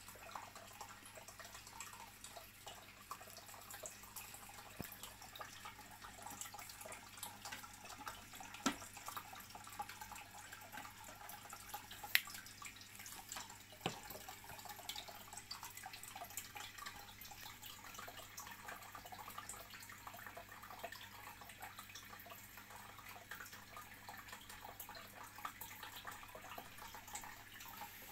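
Marine aquarium bubbling steadily, a faint fizzing crackle of fine air bubbles and trickling water with a few louder pops, over a low steady hum.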